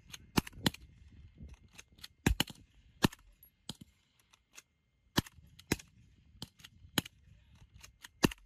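Rifles firing single shots at an irregular pace, a dozen or more sharp cracks, some in quick pairs, from a squad's fire during a night assault drill.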